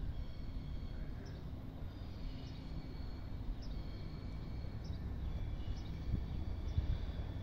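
Railway station ambience: a steady low rumble from wind and a distant approaching passenger train, with several thin high whistling notes, each held for a second or two.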